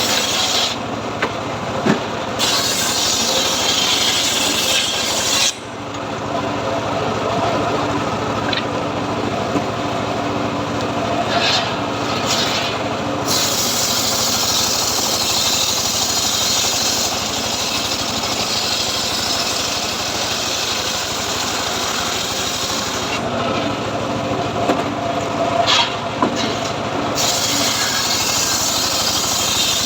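Homemade engine-driven log sawmill running steadily while sawing teak, with a rasping hiss that thins and returns a few times and a brief sudden drop about five and a half seconds in.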